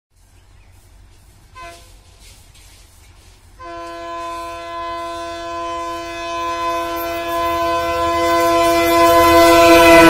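Horn of an Alco WDM-3A diesel locomotive hauling an express at speed: a short toot about a second and a half in, then from about three and a half seconds in one long unbroken blast, a chord of several tones, growing steadily louder as the train approaches, over a low rumble of the oncoming train.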